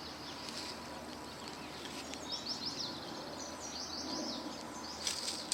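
Small birds chirping in quick clusters of short high notes over a steady outdoor background hiss.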